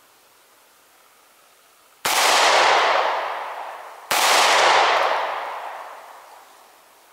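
Two 9mm pistol shots about two seconds apart, each a sharp crack that rings out and fades over a couple of seconds.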